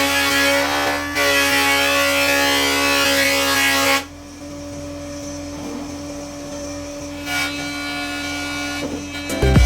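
Woodworking power tool running with a steady hum, loud for about four seconds and then much quieter at the same pitch. Music with a thumping beat starts near the end.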